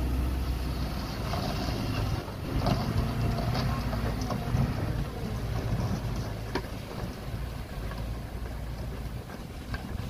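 Dump truck's diesel engine running steadily while the hydraulic hoist tips the loaded bed, with a few sharp knocks as the rock load shifts. The rumble eases off over the last few seconds.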